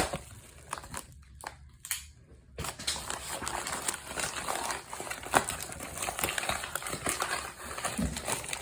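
Shipping packaging being opened by hand, crinkling and rustling with many small clicks. It is quiet for the first couple of seconds and then becomes dense and continuous from about two and a half seconds in.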